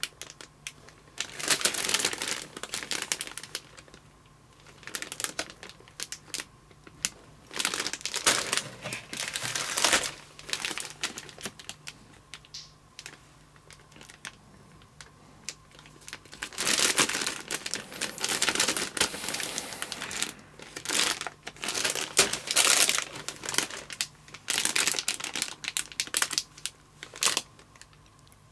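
Plastic bags of model-kit parts crinkling and rustling as they are handled. The sound comes in irregular bursts with short pauses between them.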